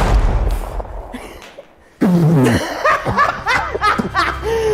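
A loud blast at the very start that dies away over about a second and a half. Then, about two seconds in, a man bursts into loud, hearty laughter in repeated bursts.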